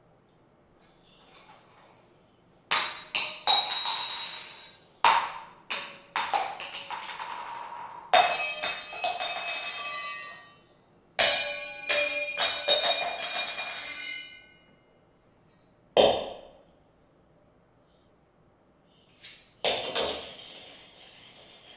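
Metal pans or bowls struck and clattered together in irregular bunches, each clang ringing on for a moment, with a lone clang later and a few more near the end.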